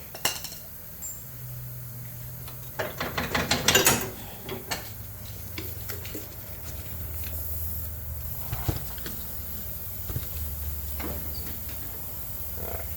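Metal tools and mower parts being handled: a burst of clinks and rattles a few seconds in, then scattered single clicks, over a steady low hum.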